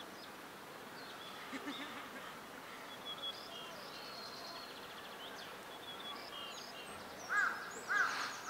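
Faint outdoor background with small birds chirping and twittering. Near the end a bird starts a series of louder repeated calls, about two a second.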